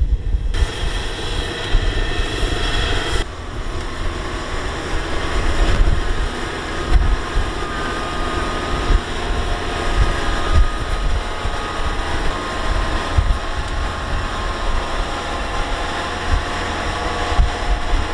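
Tracked rice combine harvester running steadily as it drives through the field, a continuous mechanical drone with a faint steady whine in it.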